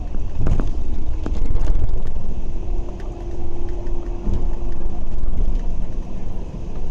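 Bus running, heard from inside the cabin: low engine and road rumble with clicks and rattles from the body, and a steady whine setting in about two seconds in.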